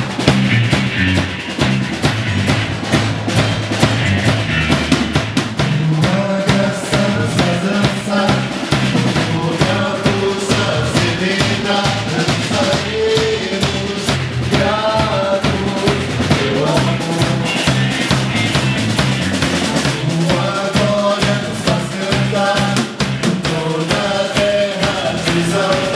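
Live band playing a Catholic worship song: drum kit, bass, and electric and acoustic guitars, with a lead voice singing the melody from about six seconds in.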